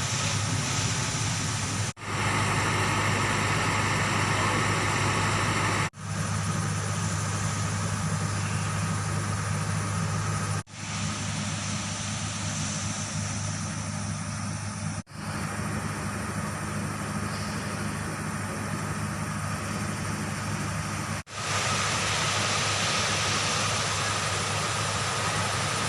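An engine running steadily at idle, a constant low hum under a broad hiss. The sound drops out and resumes abruptly several times.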